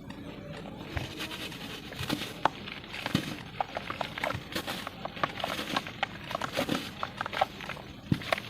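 Chunks of pure cement being crumbled: irregular crackling and crunching with many small sharp clicks.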